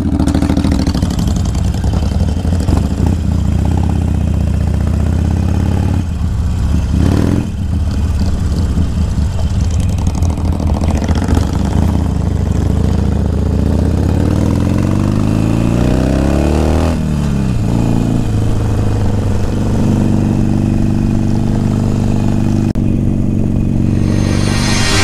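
Motorcycle engine running under way. About halfway through, its pitch climbs steadily for several seconds as it revs up, then drops back suddenly and settles into a steady run.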